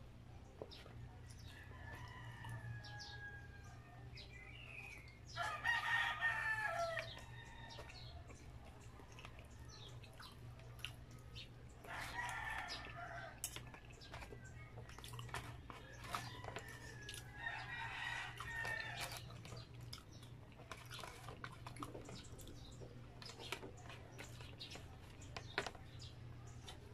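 A rooster crowing three times in the background, each crow about a second and a half long and some six seconds apart, over faint small clicks and smacks of fingers and mouth while eating.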